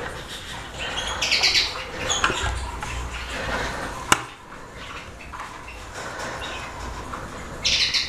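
Chicks chirping in short bursts of rapid, high calls, loudest about a second in and again near the end. A single sharp click comes about four seconds in.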